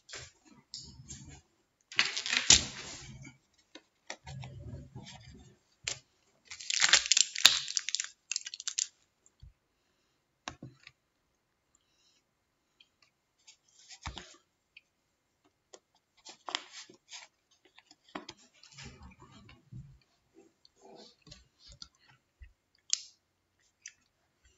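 Handling noise close to the microphone: irregular clicks and taps with two louder rustling bursts, about two and seven seconds in, then scattered light ticks.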